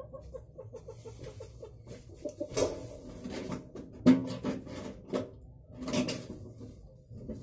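Large paper scissors snipping into the edge of a rolled galvanized corrugated zinc sheet, making a few sharp metallic snips about a second apart. Before them, in the first two seconds, comes a fast, evenly pulsed sound of uncertain source.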